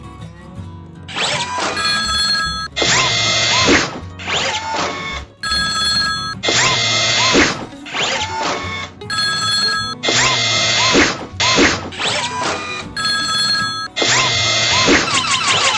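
Cartoon railroad-crossing warning bells ringing in a steady repeating 'kan-kan' rhythm, mixed with background music.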